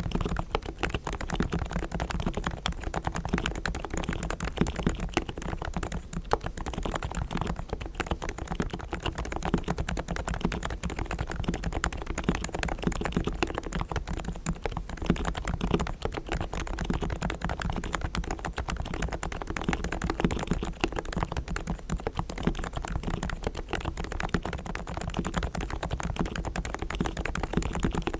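Continuous fast typing on a Realforce R3 tenkeyless Topre electrostatic-capacitive keyboard with 45 g uniform-weight silenced switches, fully lubed with Krytox on springs and sliders and foam-dampened inside. Many soft keystrokes a second at an even pace.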